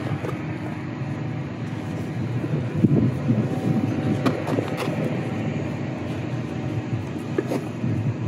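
Steady low drone of heavy machinery running, with a few short knocks and scuffs as a thick fibre sling is pushed around the steel towing point.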